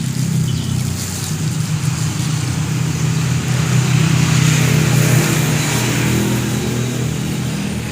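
An engine running with a steady, even hum.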